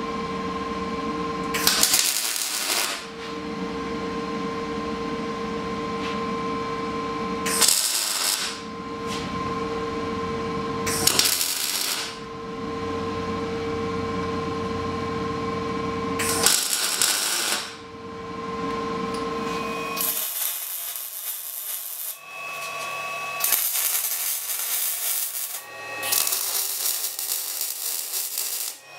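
Welding up steel motorcycle triple clamps: a steady electrical hum broken by four loud noisy bursts of about a second each. After about twenty seconds the hum stops, giving way to hissing stretches of welding with short breaks.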